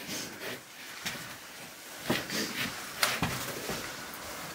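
Faint scuffing against rock, with a few sharp knocks about two seconds in and twice around three seconds in: a hiker's shoes and hands scraping and bumping on sandstone while climbing down a rock step.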